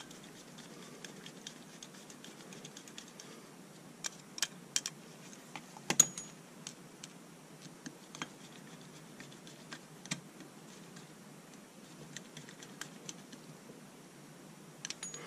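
Scattered light clicks and taps of small metal carburetor parts and a screwdriver being handled during reassembly of a Mikuni VM22 carburetor, with a few sharper clicks about four to six seconds in and another about ten seconds in.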